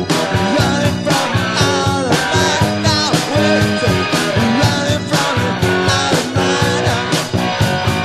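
Rock band recording playing, with guitar over a steady beat.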